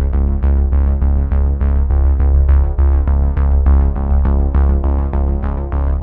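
Background electronic music: a quick, evenly repeating synthesizer pattern over a steady low bass.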